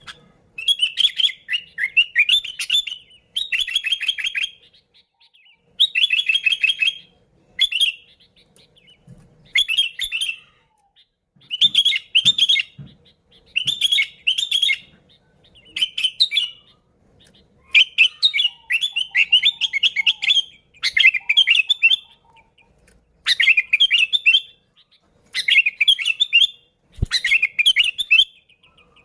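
Sooty-headed bulbul (kutilang) singing loudly: repeated bursts of rapid chirping notes, each lasting about a second, with short pauses between them.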